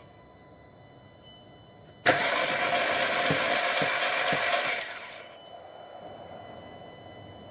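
2006 VW Passat 2.0 turbo FSI four-cylinder engine cranked over by its starter for about three seconds, starting abruptly about two seconds in. It spins fast and evenly, sounding loose, with no compression; the timing chain to the intake camshaft has snapped.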